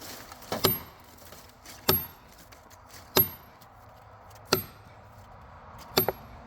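A steel felling wedge being driven into the cut of a large oak with hammer blows: five sharp metallic strikes a little over a second apart, each with a brief high ring.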